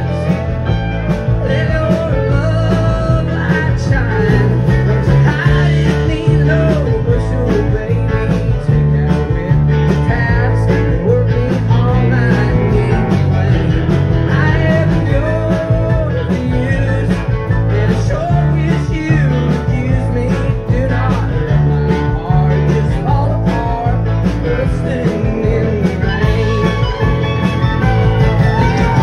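Live country-rock band playing a song: a male lead vocal over acoustic guitar, electric bass, electric guitar, keyboards and a steady drum beat.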